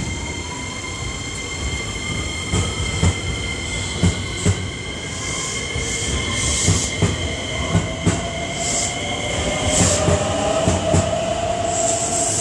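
JR West limited express electric train moving along the platform as it gathers speed: its motors whine, rising steadily in pitch, while the wheels knock over rail joints in repeated pairs.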